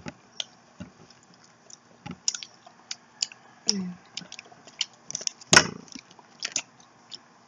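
Scattered small clicks and knocks, with a short vocal sound partway through and one sharp, louder click about two-thirds of the way in.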